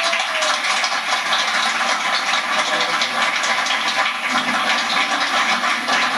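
An audience applauding steadily: dense, continuous clapping.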